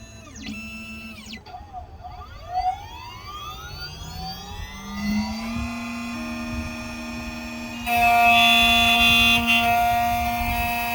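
Xhorse Dolphin XP005 key cutting machine cutting a house key. Its motors whine through quick back-and-forth moves, then the cutting spindle spins up in a rising whine and holds a steady pitch. About eight seconds in it gets louder and harsher as the cutter works the key blank.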